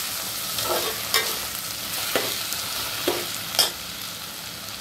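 Chicken and vegetables sizzling in a steel pot as a metal spatula stirs them; the spatula knocks and scrapes against the pot four times.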